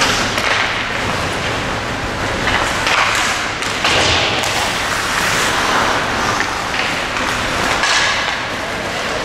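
Ice hockey play in a rink: skate blades scraping and carving the ice, with scattered knocks and thuds of sticks, puck and boards.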